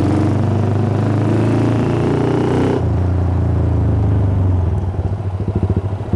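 Yamaha Scorpio 225cc single-cylinder four-stroke engine of a custom motorcycle running on the move. Its note shifts abruptly about three seconds in, and in the last second or so it settles into a slower, distinctly pulsing thump.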